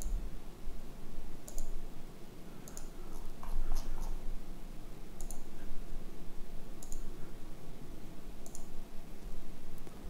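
Computer mouse clicking about seven times, a second or more apart, over a low steady room hum.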